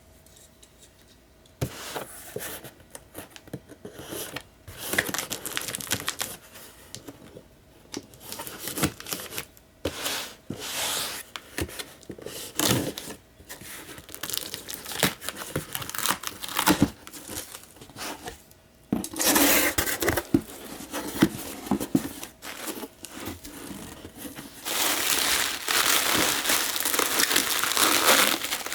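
Packaging being torn open and crumpled by hand in irregular bursts starting about two seconds in, with a denser, continuous stretch of rustling near the end.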